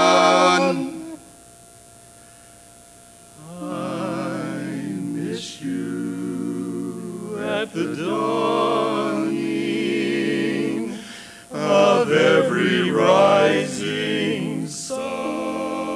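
Barbershop quartet of four men singing a cappella in close harmony. A held chord fades out about a second in; after a short pause the voices come back in and swell to their loudest near the end.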